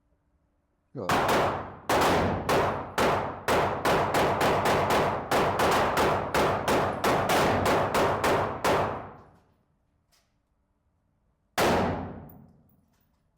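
A rapid string of about twenty handgun shots, roughly three a second, each with a long ringing tail, then a single shot a couple of seconds later.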